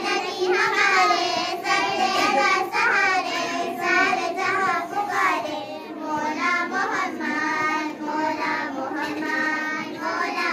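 Young schoolgirls singing a naat in sustained, gliding melodic lines.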